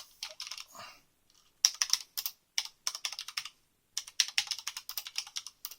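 Typing on a Corsair Strafe RGB mechanical keyboard with Cherry MX Red switches: quick runs of key clacks in several bursts with brief pauses between them.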